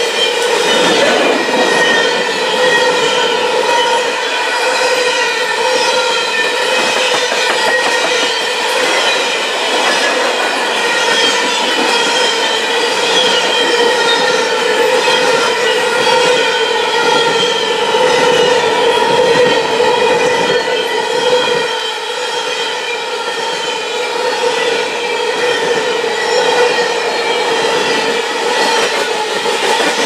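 Coal train's freight cars rolling past a grade crossing, their wheels clattering steadily over the rails. Over the clatter runs a steady high metallic ringing.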